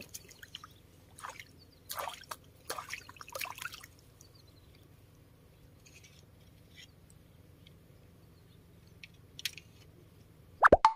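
Small splashes and drips of water, a few close together in the first four seconds and fainter ones later, over a quiet riverside background; a loud sudden sound comes just before the end.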